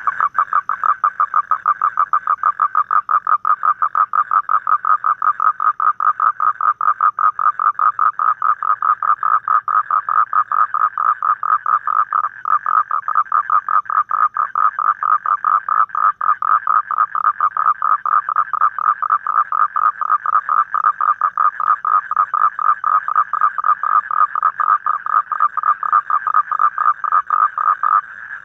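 A male Asian common toad giving its long advertisement call: a loud, rapid, evenly pulsed trill that goes on unbroken and stops just before the end.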